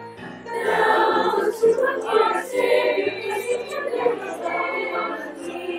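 Mixed choir of female and male voices singing with piano accompaniment, low notes moving step by step beneath the voices, which swell up about half a second in.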